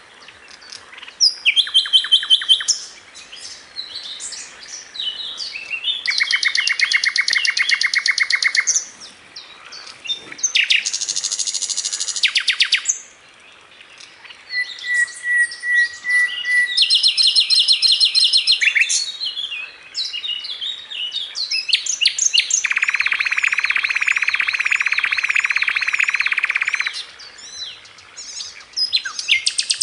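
A songbird singing a long, varied song: bursts of rapid trills, buzzy rattles and whistled notes a few seconds long, separated by short pauses.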